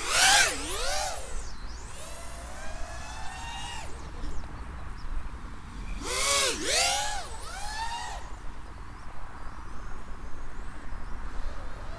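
Brushless motors of a 4-inch FPV quadcopter (Armattan Oomph 1407 3850kv, spinning 4045 two-blade props) whining as the throttle changes. There are two loud punches of throttle, one right at the start and one about six seconds in, each swooping up and down in pitch. In between, the motors run more quietly.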